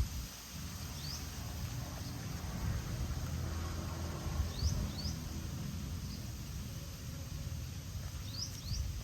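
Outdoor ambience: a steady low rumble with short, high, rising chirps from a small bird, once about a second in and then twice in quick pairs.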